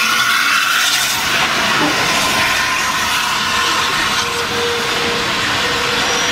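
Steam hissing steadily from BR Standard Class 8P Pacific 71000 Duke of Gloucester as it stands in the platform.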